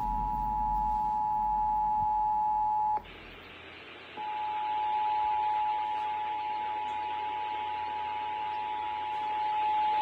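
Emergency Alert System attention signal (the 853 Hz and 960 Hz two-tone alert) from an FM radio's speaker, marking the National Periodic Test. The steady tone cuts out for about a second about three seconds in, leaving only hiss, then comes back and holds.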